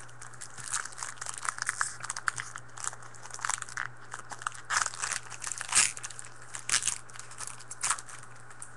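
Trading-card pack wrapper being torn open and crinkled, a run of sharp crackles with the loudest about six seconds in, over a steady low hum.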